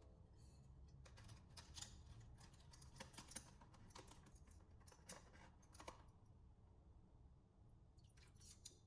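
Faint, irregular small clicks and light taps over quiet room tone, thinning out after about six seconds with a few more near the end.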